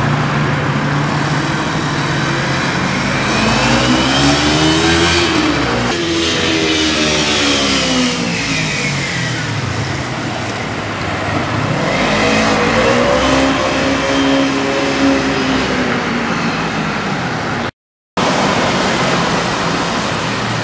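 Kawasaki Ninja 300's parallel-twin engine accelerating twice, its pitch climbing and then falling away each time, over steady wind and road noise.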